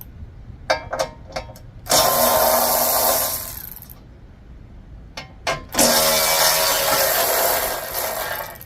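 A tool with a 13 mm socket working off the two nuts that hold a power rake's belt cover. It goes in two long runs, one of about a second and a half and one of nearly three seconds, each after a few short clicks of the socket going on.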